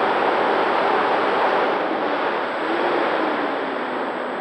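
Onboard audio of a radio-controlled P-51D Mustang in flight: a steady rush of propeller and motor noise mixed with wind over the camera's microphone. It eases slightly in the second half.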